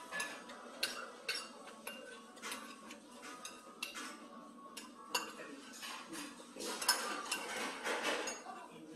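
Metal spoon clinking and scraping inside a stainless steel bowl: repeated short clinks, with a denser spell of scraping about seven seconds in.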